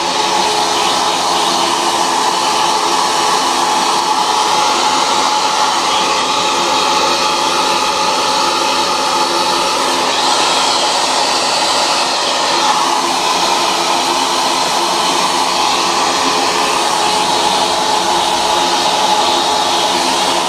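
Handheld hair dryer running continuously while drying hair: a steady rush of air with a steady whine over it, shifting slightly in tone as the dryer is moved about the head.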